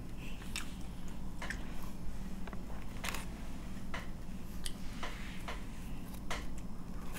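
Close-miked eating sounds while tasting pizza: scattered soft wet clicks and smacks of the mouth, about one a second.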